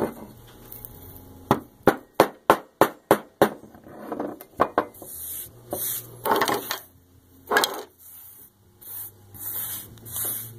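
A quick run of about seven sharp knocks on a wooden tabletop, roughly three a second, followed by rough scraping and brushing as loose salt-crust debris from an outboard cylinder head is pushed across the wood.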